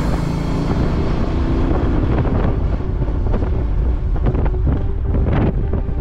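Wind rumbling steadily on a riding motorbike's action-camera microphone, with background music playing under it.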